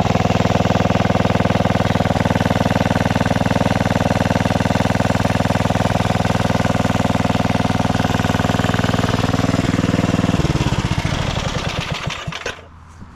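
A 12.5 hp Tecumseh OHV single-cylinder engine on a riding mower runs steadily, back together after a head gasket replacement. About ten seconds in it is shut off and coasts to a stop over about two seconds.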